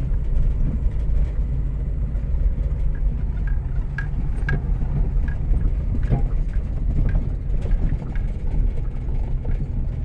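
Car interior noise while driving on a dirt road: a steady low rumble of engine and tyres, with scattered small knocks and rattles from the bumpy surface.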